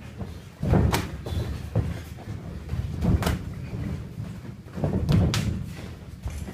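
Kickboxing strikes landing in the ring: sharp smacks of gloved punches and kicks, a handful of them a second or more apart. The loudest come about a second in, about three seconds in, and as a quick pair near five seconds.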